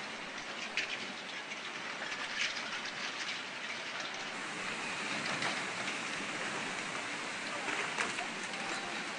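Tsunami floodwater rushing and churning through a car park, a steady wash of water noise carrying cars and debris along, with a few short sharper crackles from the tumbling water and debris.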